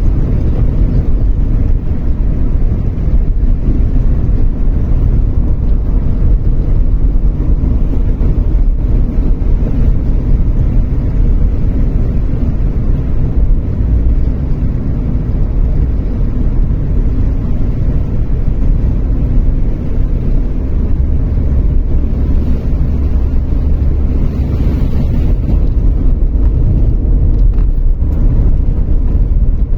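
Car driving along a road: a steady low rumble of tyres and road noise from inside the cabin.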